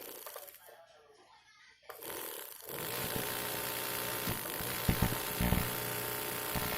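Philips blender's electric motor test-run after repair: quiet for the first couple of seconds, then the motor starts about three seconds in and runs steadily, with two short knocks shortly after.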